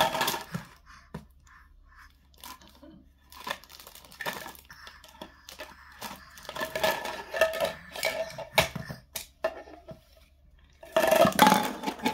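Plastic stacking-toy rings being handled and knocked together: a scatter of irregular clicks and clacks, busier near the end.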